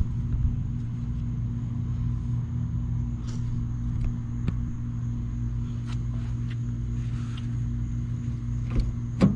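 A vehicle engine idling with a steady low hum, with a few light clicks and one sharp knock near the end.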